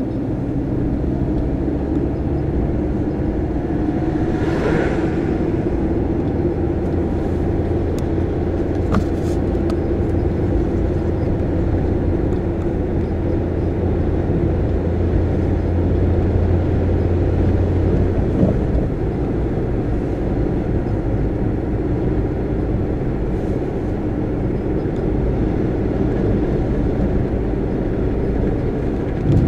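Car driving slowly: steady engine and tyre noise, with a low hum that drops away about eighteen seconds in.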